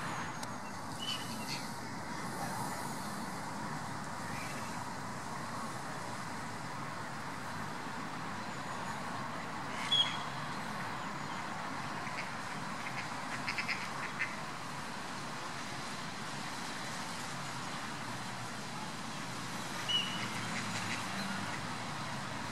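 Mallard ducks calling: a few short, high peeps spread through, and a quick run of short calls a little past halfway. A steady background hiss runs underneath.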